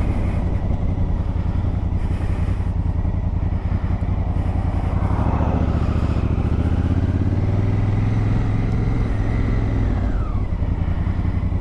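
2019 Honda Africa Twin's parallel-twin engine running under way. Its pitch rises through the middle as the bike accelerates, then eases off near the end.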